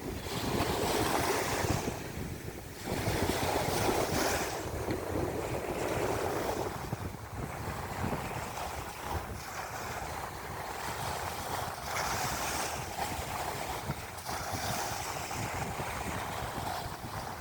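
Sea waves washing in and breaking, swelling and easing every few seconds, with wind rumbling on the microphone.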